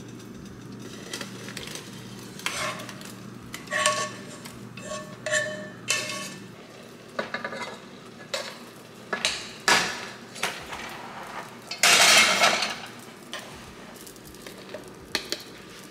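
Metal fork scraping and clanking against a nonstick skillet and cooking pot as cooked chicken and sauce are scraped into a pot of pasta: a string of clinks and scrapes, with a longer, louder scrape about twelve seconds in, over a steady low hum.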